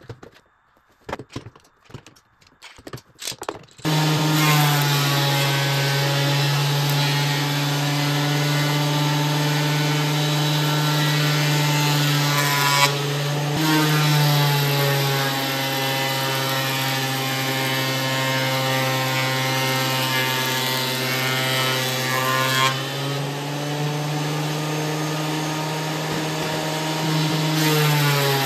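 A few quiet clicks from quick-grip bar clamps being tightened, then about four seconds in a benchtop thickness planer comes in loud. It runs with a steady motor whine over the hiss of cutting as a glued-up pallet-wood bench top feeds through, and the pitch dips a few times under load.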